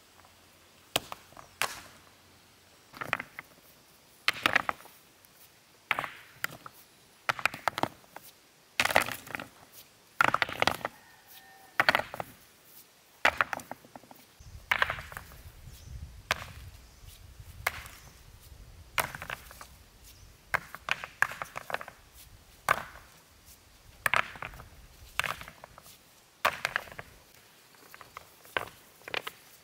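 Loose stones knocking against stones as they are set by hand into a rubble-filled stone foundation: irregular sharp clacks, some doubled, roughly once or twice a second.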